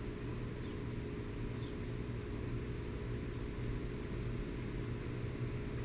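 Steady low hum with a faint even hiss: room tone, with no distinct sounds.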